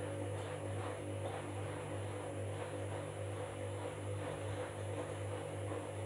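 Candy Grand'O Vita front-loading washing machine turning its drum during the wash: a steady motor hum, with the wet bedding swishing as it tumbles about twice a second.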